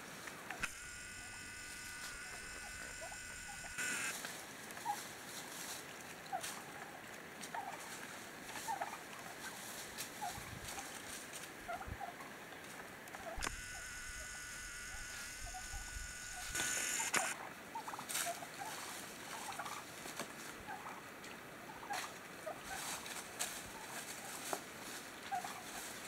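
Wild turkeys calling softly with many short, scattered notes while foraging. Twice, near the start and in the middle, a steady high whine lasts about three seconds.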